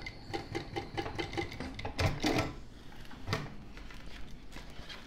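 ProSew 1933B industrial walking foot sewing machine stitching at a slow, even pace, about six or seven stitches a second, then stopping a little under two seconds in. A louder clunk with fabric rustling follows about two seconds in, and another knock a little after three seconds.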